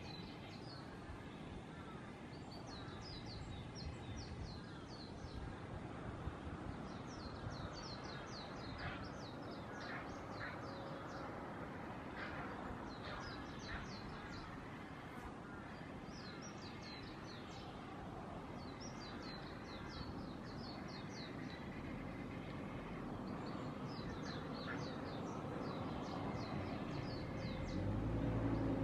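Grey herons calling at the nest, harsh chattering calls repeated in bouts, with crows cawing in the background. A low rumble rises near the end.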